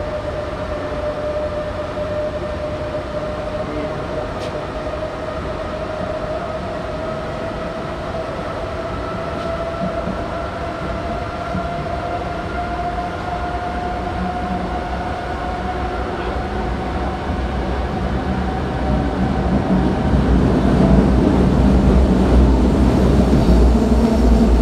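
Berlin U-Bahn G1/1E small-profile train running, heard from inside the carriage: a steady rolling rumble with a whine that rises slowly in pitch as the train picks up speed. The rumble grows louder over the last few seconds.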